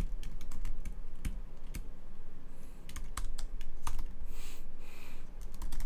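Computer keyboard keys clicking in an irregular run of separate keystrokes while code is copied and pasted.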